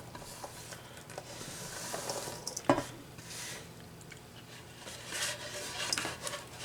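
Diced peppers and onion scraped off a cutting board into a bowl: light scraping and tapping, with one sharp knock a little under three seconds in.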